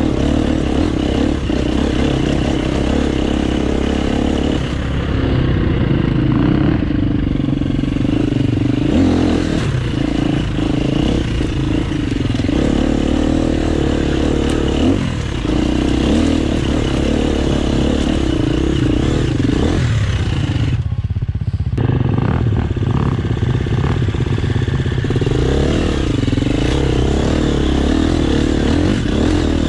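Enduro motorcycle engine heard from on the bike, running continuously with the revs rising and falling as the rider works the throttle over rough ground.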